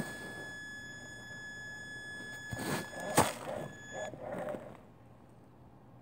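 Traxxas Summit RC crawler's electric drive giving a steady high whine while it creeps over rock, with knocks and scrapes of the truck on the rock, the sharpest about three seconds in. The whine stops about four seconds in and it goes quiet.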